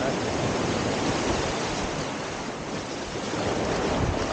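Ocean surf washing onto a beach: a steady rush of breaking waves.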